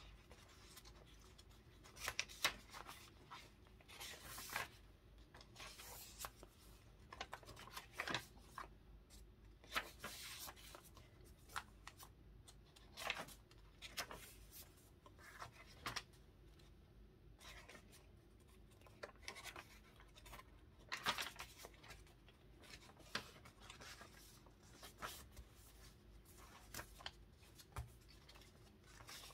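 Faint, irregular paper rustling and scraping with light taps as paper journaling cards are handled and tried between the pages of a handmade paper journal.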